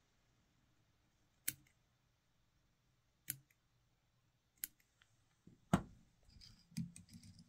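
Five sharp, separate clicks a second or more apart, with faint rustling between the last ones: small fly-tying tools and fingers handled at the vise while thread and braid are worked on the hook.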